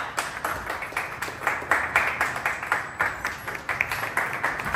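A small group of people clapping their hands: many quick, uneven claps.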